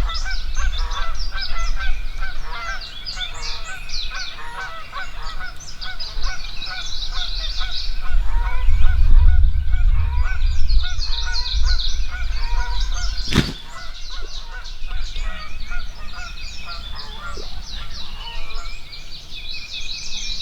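Wild turkeys and other birds calling over and over in short, busy calls. There is a low rumble on the microphone midway, and a single sharp crack about thirteen seconds in.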